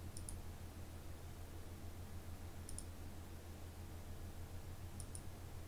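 Computer mouse button clicking three times, each a quick pair of sharp clicks, about two and a half seconds apart, over a low steady hum.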